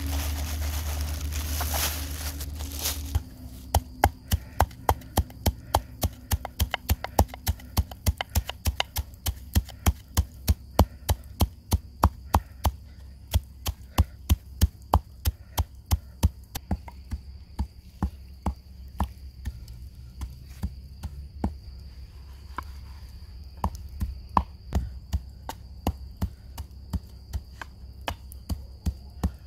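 Coarse salt poured from a plastic bag into a wooden mortar for the first few seconds, then a wooden pestle pounding the salt at about three strokes a second. The strokes are loud and even until about halfway, then softer and more irregular.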